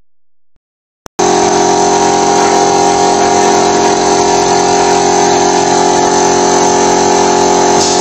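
Lada Niva manual gearbox running with its top cover off, gears turning in oil: a loud, steady mechanical whine over a hum, starting abruptly after a click about a second in. The owner puts the gearbox noise down to a chipped gear and damaged gearbox bearings.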